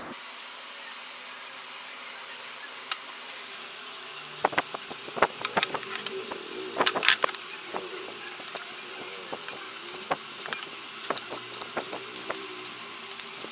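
Wooden chopsticks clicking and scraping against a small bowl as noodles and fried cheese balls are picked up, with many short sharp clicks starting about four seconds in, over a steady hiss.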